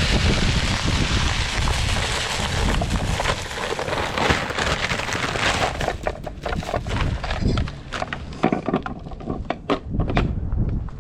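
Wind rushing over the microphone with a steady hiss that starts suddenly. About halfway through it gives way to a run of short crunches, footsteps in snow.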